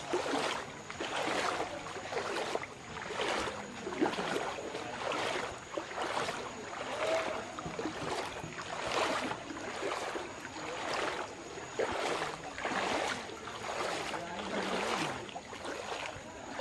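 Floodwater swishing in regular surges about once a second, like paddle or pole strokes moving a small boat through the water.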